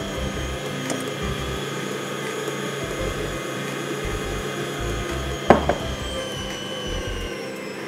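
Electric stand mixer running at low speed, its dough hook kneading a stiff yeast dough in a steel bowl; the motor's whine sags slightly in pitch near the end as the dough loads it. A sharp knock about five and a half seconds in.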